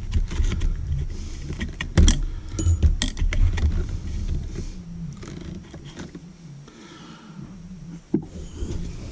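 Metallic clicks, knocks and scrapes from hands working the wires and ground clip inside a metal electrical box. The sounds come thickest in the first few seconds, then thin out, with a single sharp click near the end.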